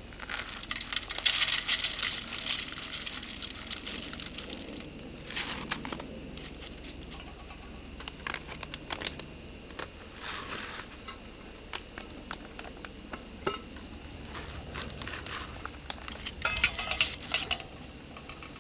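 Cooking gear and packaging being handled: small clinks, clicks and rustling in several bursts, busiest about a second in and again near the end.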